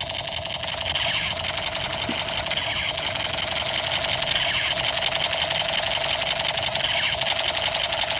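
Electric toy pistol firing continuously: a steady, very rapid mechanical rattle and buzz that does not let up.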